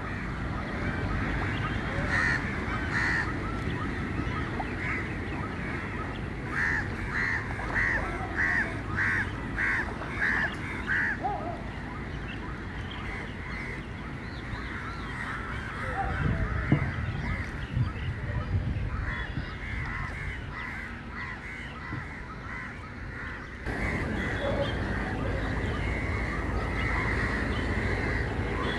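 A dense chorus of many birds calling over a low rumble. About a third of the way in comes a run of about nine louder, evenly spaced calls, roughly two a second. The background changes suddenly near the end.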